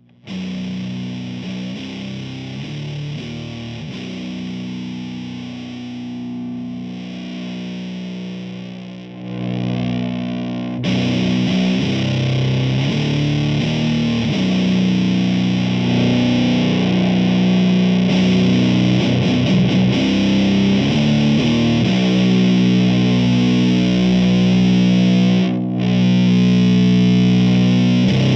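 Electric guitar played through a Does It Doom Elder God fuzz pedal, a silicon Fuzz Face and Green Russian Big Muff fuzz in one, into a Mesa Boogie amp's clean channel: thick, sustained fuzzed riffing with heavy low notes. About eleven seconds in it gets louder and brighter.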